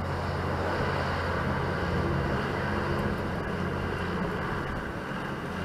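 A steady engine drone, a low even hum with a rushing noise over it.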